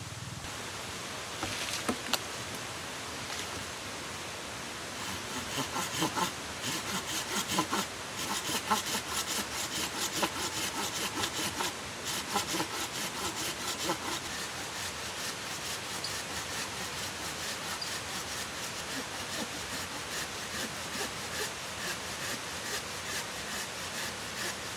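Folding hand pruning saw cutting through a log with quick, even back-and-forth strokes. The strokes start about five seconds in, are heaviest for the next ten seconds or so and then go on lighter. A couple of sharp knocks come about two seconds in, before the sawing.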